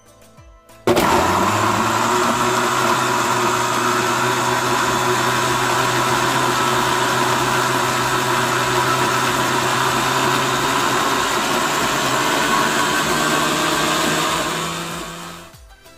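Electric blender switched on about a second in, its motor running loud and steady as it grinds whole garlic, ginger, pear and onion into a wet paste, the hum rising a little in pitch late on, then winding down near the end.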